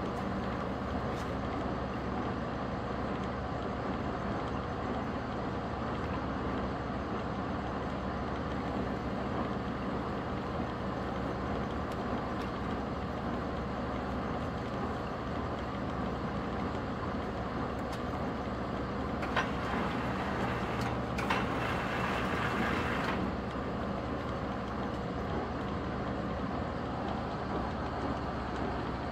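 Large manual lathe running under power: a steady, even machine hum with a constant tone, and a brief hiss about two-thirds of the way through.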